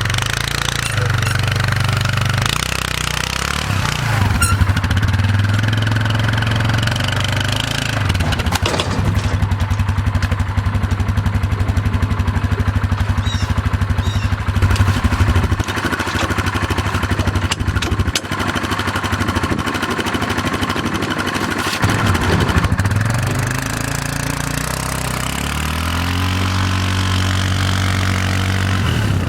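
Four-wheeler (ATV) engine running while it pulls a loaded trailer through soft snow, its revs rising and falling several times.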